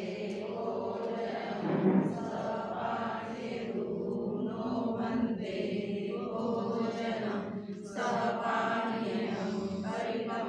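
Buddhist congregation chanting Pali devotional verses together in steady, drawn-out unison.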